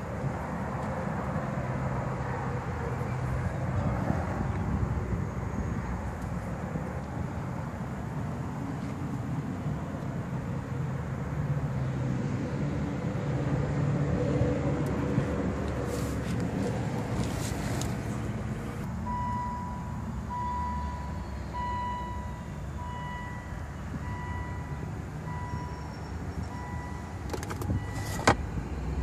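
Steady low rumble from the Volvo XC90, with a few clicks and knocks; about two-thirds of the way in, a two-note electronic warning chime starts, repeating about once a second.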